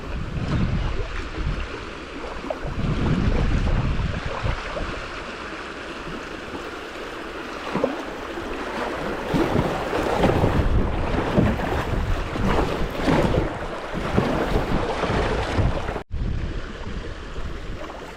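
Fast creek water rushing and splashing through a rapid, with wind buffeting the microphone. The splashing comes in irregular surges and is heaviest past the middle.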